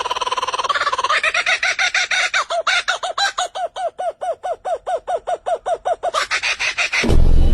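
A bird calling: a held note, then about a second in a fast run of short repeated notes, about five a second, each rising and falling in pitch. Music starts at the very end.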